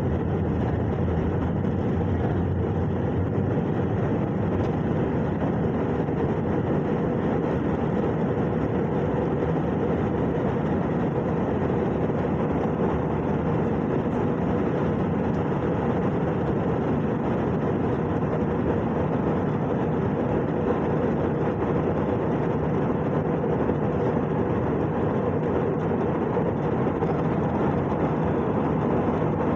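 Steady cabin noise of an airliner in flight: an even, low rumble of engines and airflow that stays the same throughout.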